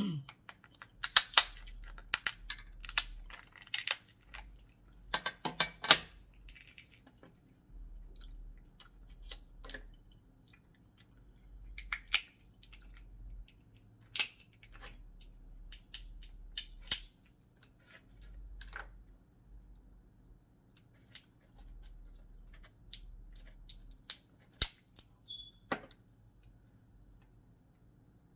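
Close-up eating of a seafood boil: chewing, with irregular sharp clicks and cracks scattered through, thickest in the first few seconds.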